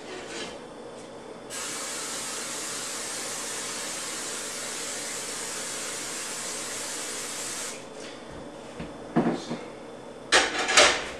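Aerosol cooking spray hissing steadily into a frying pan for about six seconds, starting and stopping abruptly. A few sharp knocks follow near the end.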